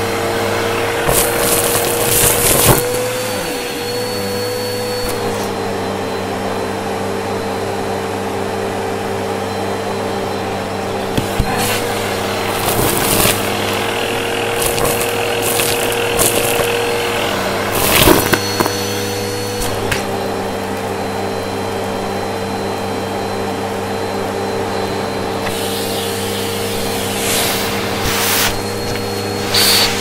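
Vacuum cleaner running steadily through a hose wand, its motor humming at an even pitch. Several times, bursts of crackling rattle come as grit and small debris are sucked up the hose.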